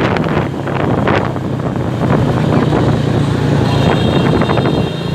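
Motorbike engines running in a dense street crowd, with wind on the microphone and scattered knocks. High-pitched horn tones join in about three-quarters of the way through.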